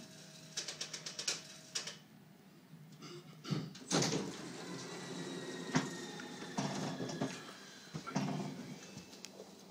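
Mechanical clicks and knocks inside a regional train carriage standing at a station, with the train's steady low hum underneath. A run of quick clicks comes in the first two seconds, then a louder knock a little before the midpoint and scattered knocks after it.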